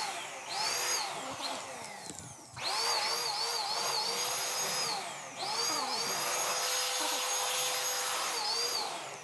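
Handheld electric blower running, blowing dust out of an open desktop computer case; its motor whine sways up and down in pitch. Twice the level dips briefly and then surges back.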